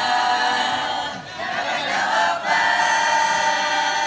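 A group of students singing together loudly in long held notes, with a short dip about a second in.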